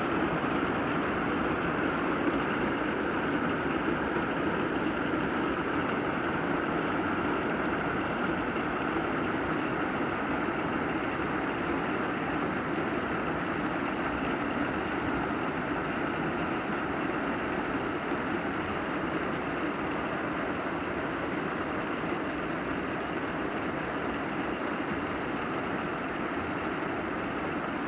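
Steady, even rush of rain, muffled and without distinct drops, easing very slightly toward the end.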